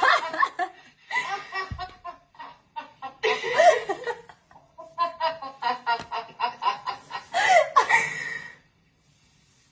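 Women laughing heartily in several bouts of quick, rhythmic ha-ha pulses with short pauses between them, breaking off about a second before the end.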